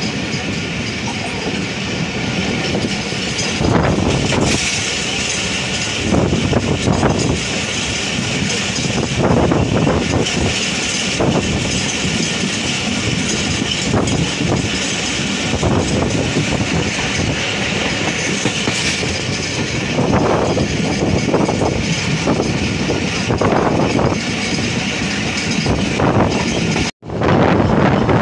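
Passenger train running at speed, heard from an open door or window: a steady rumble and wind with the clickety-clack of the wheels over rail joints, swelling louder every few seconds. The sound cuts out abruptly for a moment near the end.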